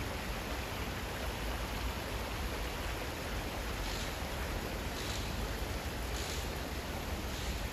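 Shallow stream water flowing over a stony bed: a steady, even rushing hiss.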